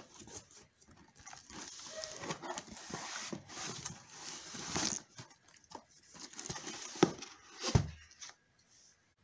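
Hands opening a taped cardboard box: packing tape peeled off, cardboard flaps scraping and rustling, and corrugated cardboard packing shuffled, with scattered knocks and two sharper taps near the end.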